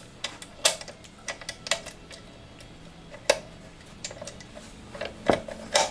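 Metal parts and hardware clicking and clinking as a bottom flap guard is fitted and fastened onto a saw: scattered light ticks and taps, with two louder knocks near the end.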